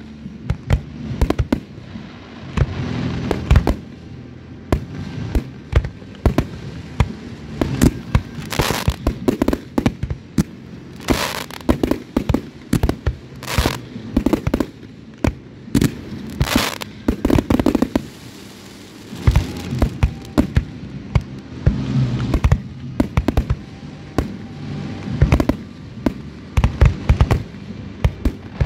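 Aerial fireworks display: shells bursting in a rapid, irregular string of sharp bangs and crackles, coming thickest in the middle and again near the end.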